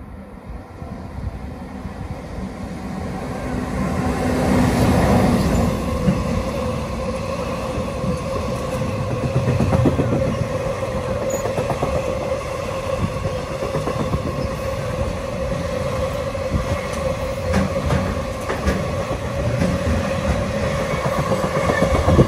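Container freight train passing close below, growing louder over the first five seconds as the head of the train comes under. The wagons then roll by with steady wheel clatter over the rail joints and a steady whine from the wheels on the rails.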